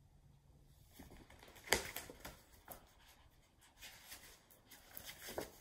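A paperback picture book being handled and its page turned: faint paper rustles and soft clicks, the loudest a little under two seconds in.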